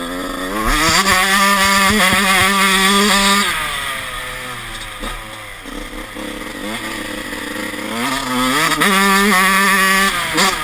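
Honda CR 125 two-stroke motocross engine with a '91 Mugen cylinder and FMF Fatty exhaust, heard from on board the bike. It accelerates hard for the first few seconds, backs off for several seconds, then accelerates again before easing near the end.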